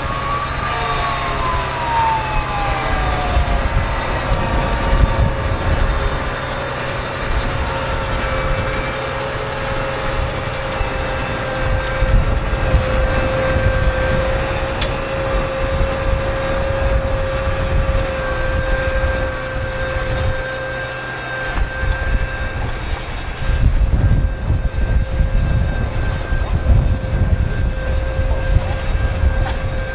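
New Holland T7.270 tractor's six-cylinder diesel engine running steadily under load while pulling a seven-furrow reversible plough through soil. A steady whine runs over a deep rumble, a second tone falls in pitch over the first few seconds, and the rumble grows heavier near the end.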